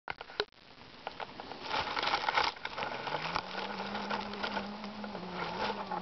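Dry leaf litter and twigs crackling and rustling close to the microphone, with a few sharp clicks at the start. About halfway through, a low steady hum sets in, rising briefly in pitch and then holding.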